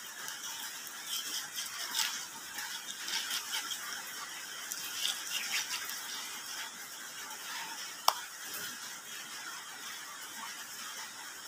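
Kitchen knife filleting a small mackerel tuna on a bamboo cutting board: scattered soft scrapes and taps as the blade works along the backbone, with one sharp click about eight seconds in.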